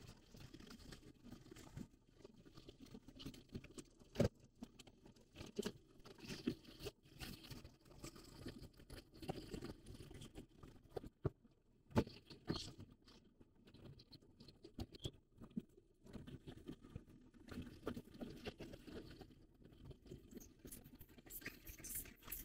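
Faint in-car noise while driving: scattered light clicks and taps over a low hum, with no clear engine or road sound standing out.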